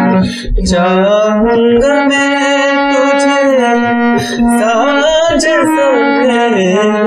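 A man singing a film-song line in the F-sharp scale over held harmonium notes, his melody gliding and climbing to komal ga (the flat third), with two short breath breaks, near the start and about four seconds in.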